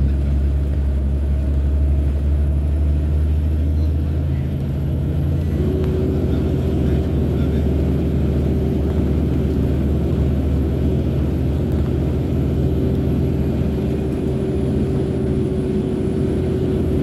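Log truck's diesel engine running steadily on the move. The engine note shifts about four seconds in, and a steady whine joins about five seconds in.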